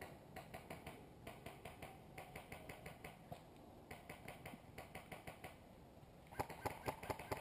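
Airsoft guns firing, a series of sharp clicking shots in quick runs of about six a second with short pauses between them. About six seconds in the shots get louder and come steadily, about three a second.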